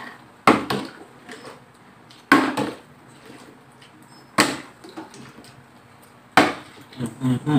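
Plastic water bottles flipped into the air and landing on a tabletop: four sharp knocks about two seconds apart, each dying away quickly.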